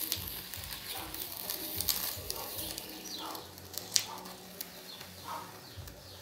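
Wooden template scraping around wet cement mortar on a pot mould, with scattered clicks and taps, the sharpest about four seconds in. Short falling bird chirps come in a few times in the background.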